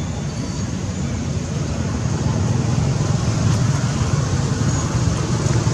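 Steady low rumble of outdoor background noise, growing slightly louder toward the end.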